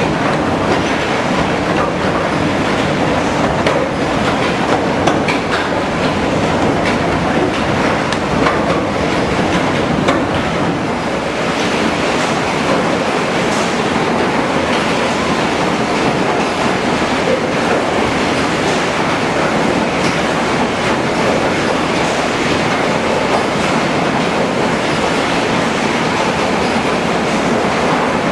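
HewSaw R200 chipper-canter sawing line running: loud, steady machine noise with constant clatter.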